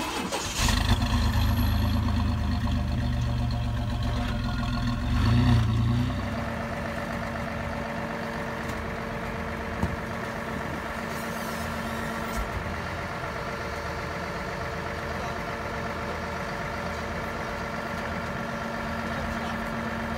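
Truck engine running louder for about the first six seconds, then settling into a steady idle.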